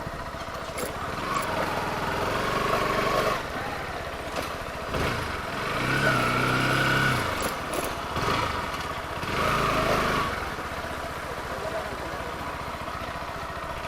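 Kawasaki motorcycle engine running steadily while riding on the road. Three louder swells come about two, six and ten seconds in.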